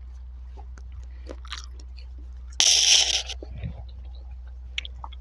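A farm animal chewing close by, with crunching and biting clicks. About two and a half seconds in there is one loud rushing burst lasting under a second.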